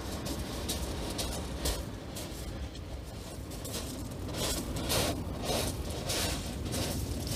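Surf on a shingle beach under a steady low rumble, with a scatter of short crunches of shingle, thickest about four to six seconds in, as the angler steps through a cast.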